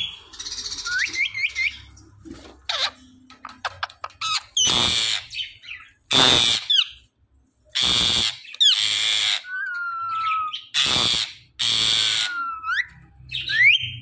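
Indian ringneck parakeet calling: quick rising whistles and about six harsh, loud screeches of roughly half a second each, with a short level whistle between them.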